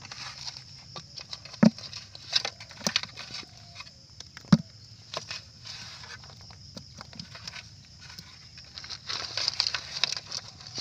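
Snail shells clicking and rattling against each other and the metal basin as hands stir and sift through a basin heaped with freshwater snails. The clicks are irregular, with two sharper knocks, one a little under two seconds in and another about halfway through.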